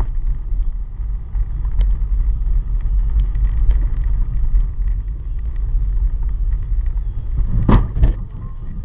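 Car driving, with a steady low road-and-engine rumble. About three-quarters of the way through comes a sharp knock, the loudest sound.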